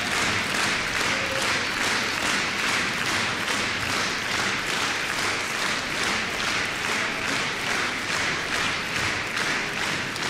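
Audience applauding in unison, clapping together in a steady rhythm of about three claps a second.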